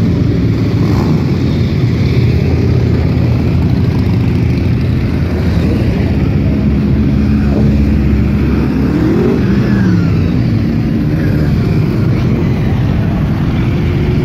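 A stream of motorcycles riding past, their engines running together in a loud, steady din. A little past the middle one engine's pitch climbs and then falls as it revs by.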